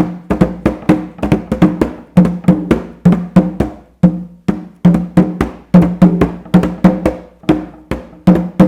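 A drum beaten loudly in a steady, fast rhythm, several strokes a second, each stroke ringing briefly at a low pitch.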